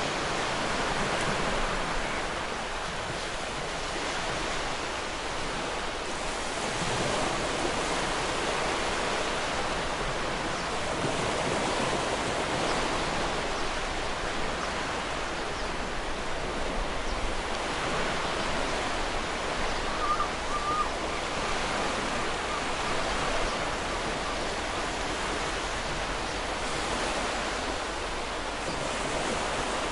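Ocean surf washing in continuously, the noise swelling and easing as waves break. About twenty seconds in, a brief faint gull call sounds over it.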